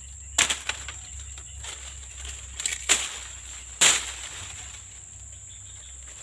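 Three sharp splashes or slaps in muddy water: one near the start, one about two and a half seconds later and one a second after that, with smaller splashes between. A steady high-pitched insect buzz runs underneath.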